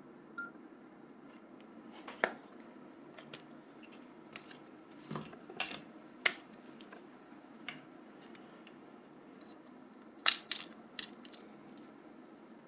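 Scattered sharp little clicks and taps, about ten in all and the loudest near 2, 6 and 10 seconds in, from a Nokia 6170 phone's plastic casing and parts being handled at the start of its disassembly.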